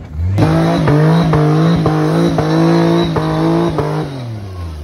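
Off-road rock buggy's engine held at high revs with several brief dips and sharp knocks, then winding down about four seconds in as the buggy ends up on its roof.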